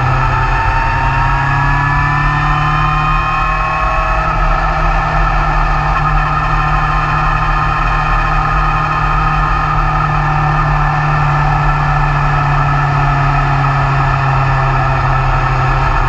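BMW S1000R's inline-four engine running at road speed. Its pitch rises over the first few seconds as it accelerates, then holds steady, over steady wind and road noise.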